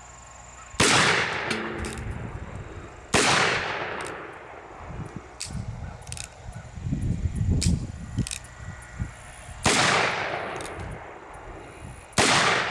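Four shots from a reproduction .44 black-powder percussion revolver in the Colt Navy style, fired one at a time with uneven gaps: one about a second in, one around three seconds, one near ten seconds and one just before the end. Each is a sharp report followed by a long echoing tail.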